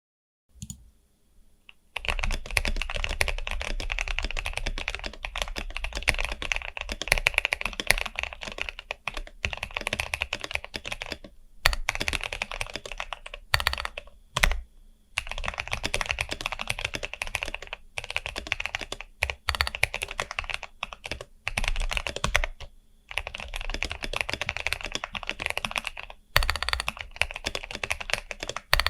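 Custom mechanical keyboard being typed on fast: dense runs of key clacks that begin about two seconds in and break off for a few short pauses.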